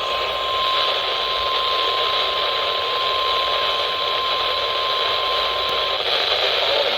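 NOAA Weather Radio warning alarm tone, a single steady high-pitched tone, heard through a weather radio receiver's speaker over a bed of radio static hiss. The tone cuts off about six seconds in, leaving the hiss. The alarm tone signals that a warning broadcast is about to follow.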